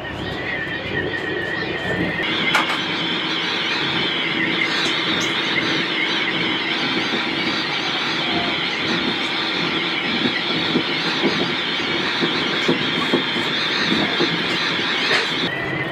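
Train running, heard from the driver's cab, with a steady high squeal over the running noise. The squeal sets in about two seconds in and cuts off abruptly near the end.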